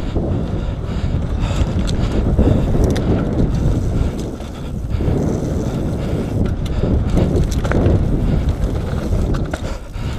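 Wind buffeting the camera microphone as an enduro mountain bike rolls fast down a dirt trail, with tyre rumble and repeated sharp rattling clicks from the bike over the bumps.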